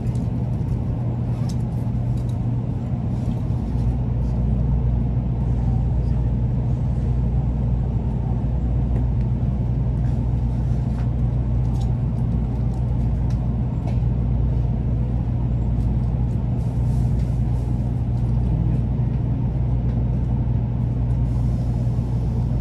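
Interior running noise of an N700 series Large A Shinkansen train rolling slowly alongside a station platform: a steady low hum, with a deeper hum joining about four seconds in and a few faint ticks.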